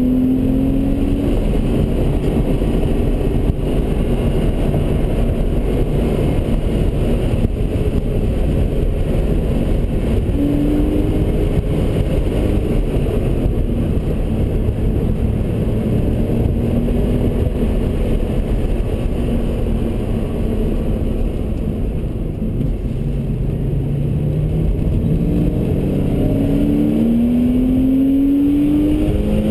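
Car engine heard from inside the cabin while being driven hard on a race track, rising and falling in pitch through corners and gear changes over steady wind and road noise. In the last few seconds the engine climbs steadily in pitch as the car accelerates down the straight.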